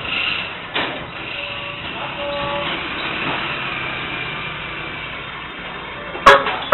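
Steady street and vehicle noise heard through a security camera's microphone, then two short, loud horn toots near the end.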